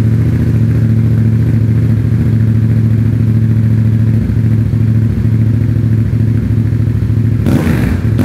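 Yamaha FZ-07's 689 cc parallel-twin engine idling loudly through a newly fitted, not yet tuned full aftermarket exhaust system, just after its first start on it. Near the end the throttle is briefly blipped.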